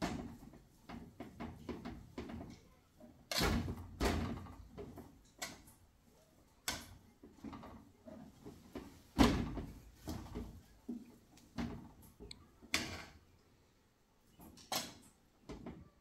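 A metal ladle knocking and scraping against a metal cooking pot as noodles are stirred and lifted out, in irregular clanks, the loudest about nine seconds in.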